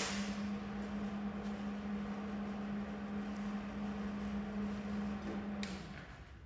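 Welding machine humming steadily between welds, then cutting off with a click about five and a half seconds in.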